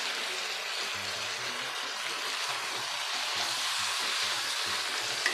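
Pork and kimchi sizzling steadily in a non-stick wok while being stir-fried with a wooden spatula, with one short tap of a utensil near the end.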